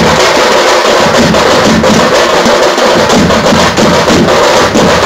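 A troupe of tamte frame drums beaten with sticks, together with large bass drums, playing a fast, dense, loud rhythm without a break.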